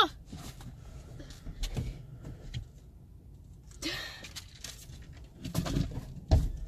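Rustling and a few soft knocks and thumps of someone shifting about inside a parked car, with handling noise on the phone that is filming.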